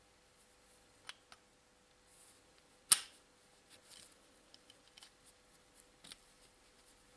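Steel parts clicking and clinking as a bolt and roller are fitted to a steel arm by hand. One sharp, loud click comes about three seconds in, with a few lighter ticks before and after it.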